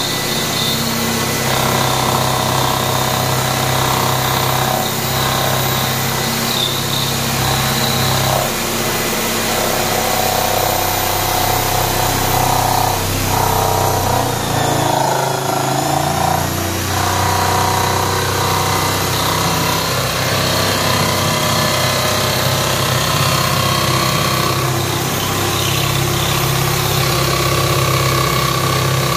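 Bosch corded jigsaw sawing through a door panel, its blade stroking steadily, with a brief slowdown about halfway through the cut.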